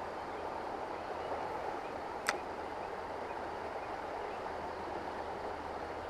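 Steady rush of flowing river water, with one sharp click about two seconds in.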